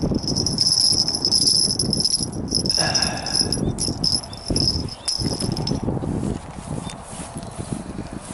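Spinning reel being cranked as a hooked fish is brought in, a steady high whine that stops about six seconds in, over wind buffeting the microphone.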